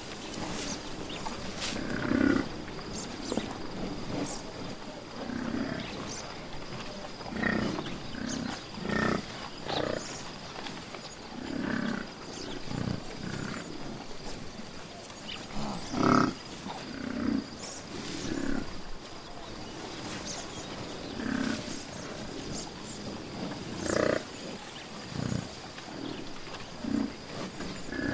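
An animal's short, low calls, repeated every second or two, over a steady background hiss and a faint, steady high tone.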